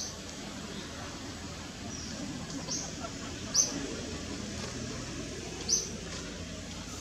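A bird giving short, high chirps, four of them a second or two apart, over a steady outdoor background hiss.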